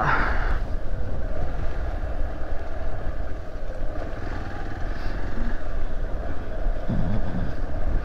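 Hero XPulse 200 motorcycle's single-cylinder engine running steadily as the bike rides along a wet gravel track, with a heavy low rumble.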